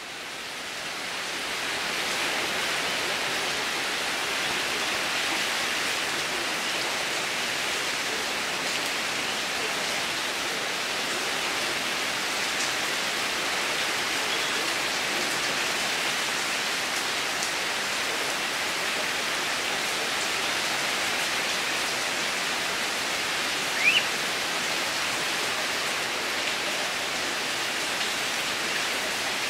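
Heavy typhoon rain pouring down in a steady, even hiss. A brief high rising squeak cuts through about four-fifths of the way in.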